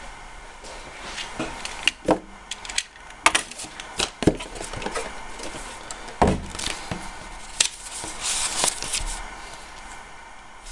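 A cardboard toy box and a paper booklet are handled and set down on a tabletop: scattered knocks and taps, a heavier thump about six seconds in as the box is put down, then a papery rustle near the end.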